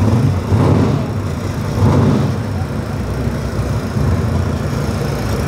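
Two Dodge Hellcats' supercharged V8s idling at the drag-strip start line, a deep steady rumble that swells briefly twice, about half a second and two seconds in.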